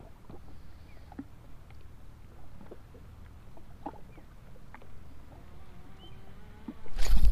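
Small waves lapping against a personal watercraft's hull, with scattered light ticks and clicks over a low rumble. Just before the end a sudden loud rush of noise breaks in.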